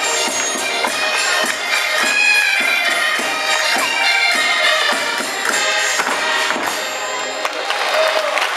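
Live Portuguese Minho folk-dance music: a pitched melody over a steady, even percussion beat. The music winds down near the end as the dance finishes.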